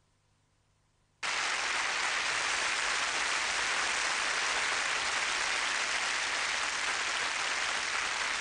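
Near silence for about a second, then a large concert audience applauding, starting abruptly and holding steady.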